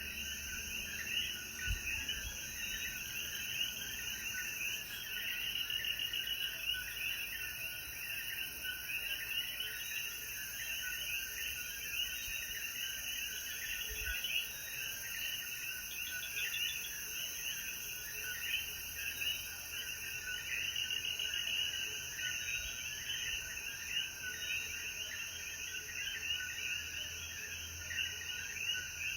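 Dense chorus of Puerto Rican coquí frogs calling, many overlapping short chirps, over a steady high hiss.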